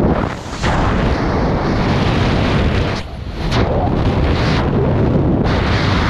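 Loud rushing wind buffeting a helmet camera's microphone during a skydive as the main parachute deploys, with two brief drops in the noise, about half a second in and about three seconds in.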